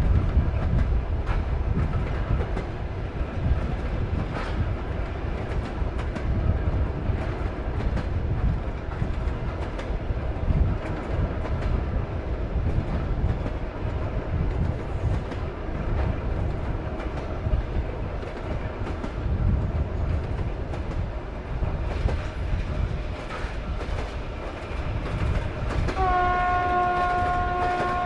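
Sleeper train carriage running along the track with a steady low rumble and scattered wheel clicks over the rails. Near the end a train horn sounds one held note for about two seconds, rising slightly in pitch as it goes.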